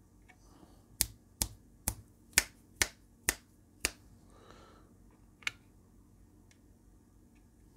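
A person snapping their fingers: seven sharp snaps at about two a second, then one more about a second and a half later. The snaps are a test sound for a sound-to-light LED kit's microphone.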